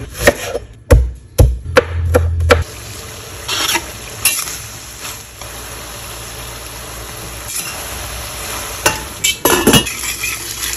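A knife chopping onion on a wooden cutting board, a quick run of sharp knocks for the first two seconds or so. Then ground beef sizzling as it fries in a stainless steel skillet, a steady hiss with scattered clicks and a burst of stirring clatter near the end.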